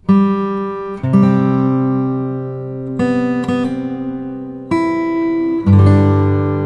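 Background music: acoustic guitar chords strummed and left to ring out, a new chord every second or two.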